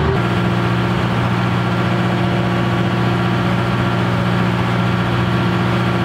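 Boat engine running at a steady pitch, a constant drone without change in speed.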